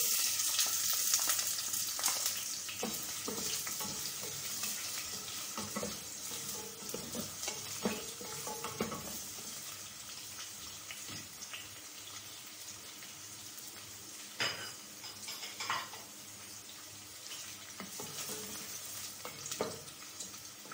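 Sliced onions sizzling in hot oil, loudest as they hit the oil and easing off over the first ten seconds or so. A wooden spatula scrapes and knocks against the enamel pot now and then as the onions are stirred.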